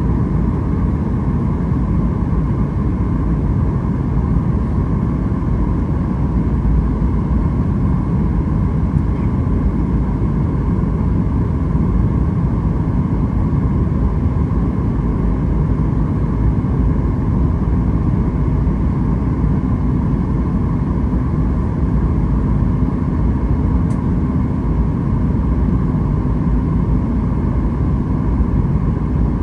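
Steady cabin noise inside a Boeing 737 MAX 8 in flight: an even, loud rumble of the CFM LEAP-1B engines and the air rushing past the fuselage, with a faint steady whine above it.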